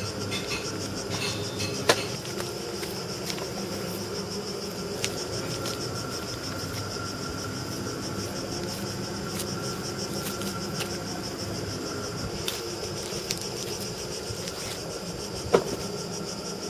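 A steady outdoor chorus of insects shrilling, with two sharp knocks, one about two seconds in and one near the end.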